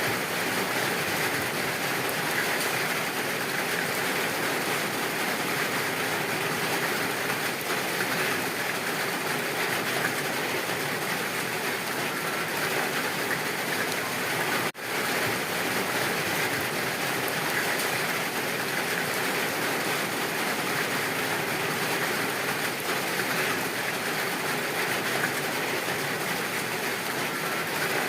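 Rain falling steadily in a forest, an even dense hiss that drops out for an instant about halfway through.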